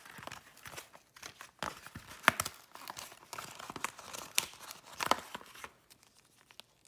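Crinkling and tearing as a Pop Pets toy is squeezed and popped open, with irregular sharp crackles. The loudest snap comes a little over two seconds in, and another about five seconds in.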